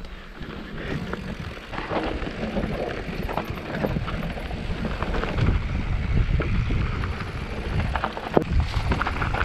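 Mountain bike descending a dry dirt singletrack: tyres running over loose gravel and the bike rattling and clattering over bumps, over a steady low rumble of wind on the microphone. A sharp knock stands out about eight seconds in.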